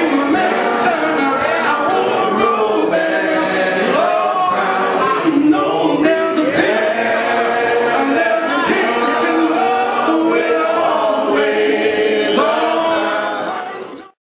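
Gospel singing, steady throughout and fading out near the end.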